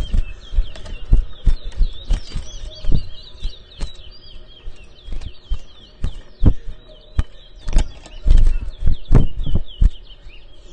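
Caged towa-towa finches singing in a song competition: quick, repeated high chirping phrases that keep going, mixed with frequent dull thumps and bumps.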